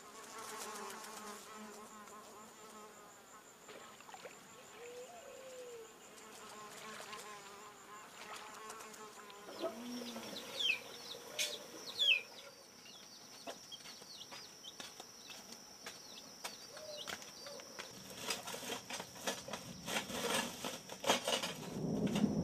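Insects keep up a steady high buzz, its pitch dropping a step about halfway through. A chick peeps a few short falling notes around ten to twelve seconds in. Near the end a quick run of clicks and knocks comes in.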